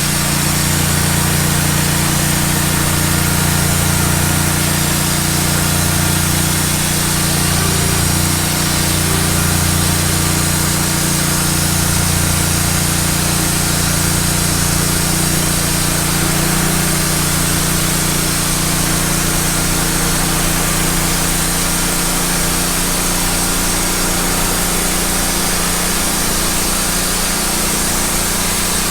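Wood-Mizer LT15 band sawmill running steadily, its band blade cutting through a log under a constant engine drone.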